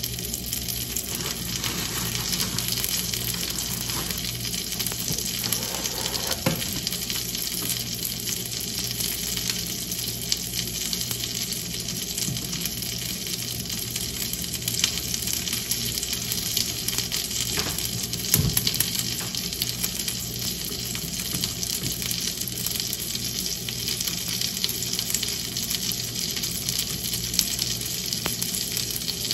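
Scrambled eggs sizzling steadily in a frying pan on a gas stove, with a few light knocks, the loudest about two-thirds of the way through.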